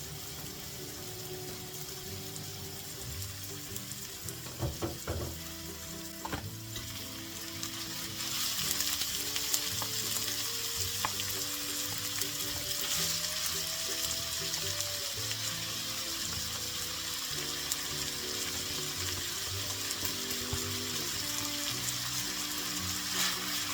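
Food sizzling as it fries in a pan, the sizzle growing louder about eight seconds in, with a few knocks a few seconds in, over quiet background music.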